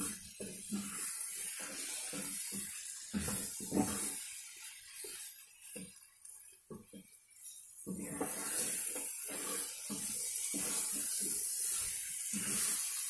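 Spatula stirring and scraping green pea paste with sugar and semolina around a nonstick kadai, short strokes over a light sizzle of the mixture frying in ghee. The stirring goes quieter for a few seconds midway, then the sizzle comes back steadier.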